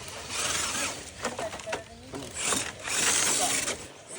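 Crunching and scraping on rock and loose gravel in several bursts, with sharp clicks and a few brief squeaks between them.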